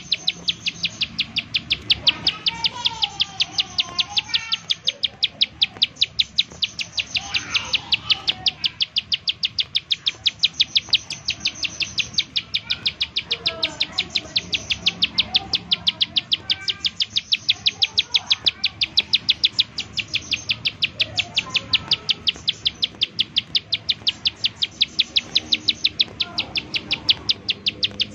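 Plain prinia (ciblek sawah) singing its rapid 'nembak' burst song: a long, even run of dry, high ticking notes at about four to five a second, broken by short pauses, with fainter, lower chirping notes underneath.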